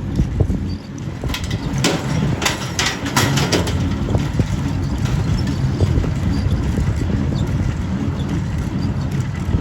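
Diesel tractor engine running steadily at working revs, with a quick run of clattering metal knocks about two to three and a half seconds in.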